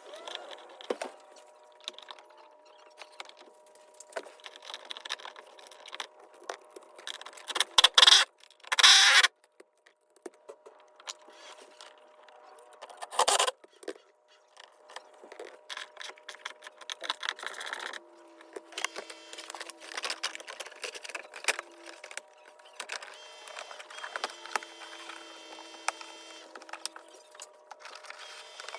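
Metal clicks, clinks and rattles of hand-fitting a seat belt retractor pretensioner assembly into a truck, with three louder short bursts about eight, nine and thirteen seconds in, and two stretches of a steady low hum in the second half.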